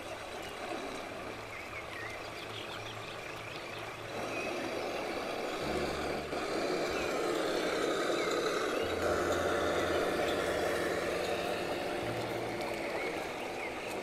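Radio-controlled Tamiya dump truck driving on dirt, its running sound a truck-like engine drone that grows louder about four seconds in. Birds chirp faintly.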